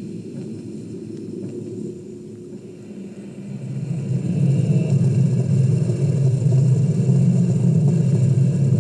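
Minibox spirit-box app playing its portal audio through a speaker: a low, noisy rumble that swells louder about three and a half seconds in.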